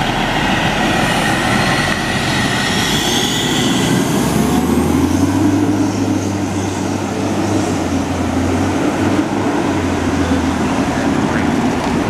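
A 2003 E-One Cyclone/Saulsbury heavy rescue fire truck drives past and pulls away. Its engine gives a rising whine over the first few seconds, then settles into a steady low drone.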